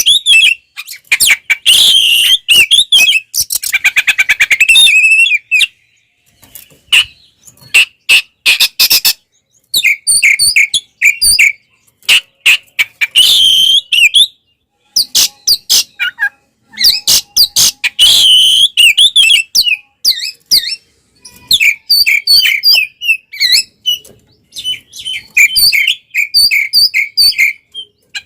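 Oriental magpie-robin (kacer) singing loudly in bursts: varied whistled phrases mixed with rapid harsh chattering notes, with short pauses between bursts. This is the full, aggressive fighting song that kacer keepers play to provoke other kacer.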